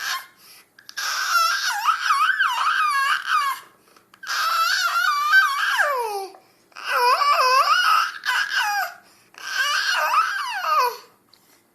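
A young child making high-pitched, warbling vocal noises, between babbling and crying, in four bouts of about two seconds each. Several bouts end in a falling glide.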